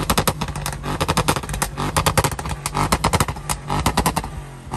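Audi RS7's twin-turbo V8 idling after a rev, its exhaust crackling and popping in rapid, dense volleys over a steady low engine note. It is running on downpipes with the catalytic converters removed.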